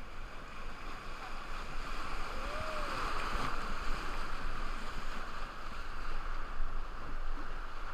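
Steady rush of river whitewater around a raft, an even wash of water noise, with one faint brief rising-and-falling tone about two and a half seconds in.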